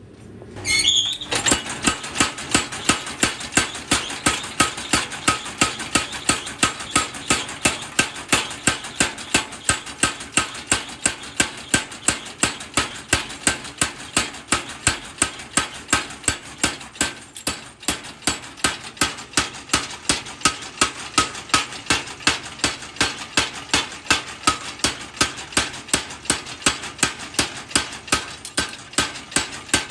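Steel being hammered while a sickle is forged: an even run of sharp metallic strikes, about two to three a second, starting about a second in.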